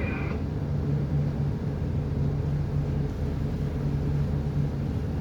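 Marine diesel engine running steadily under load, a low, even drone with a strong hum.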